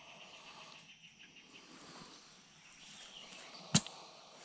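One sharp knock of a machete blade chopping down through a cottonmouth's neck into the ground, about three and a half seconds in, over faint insects and birds.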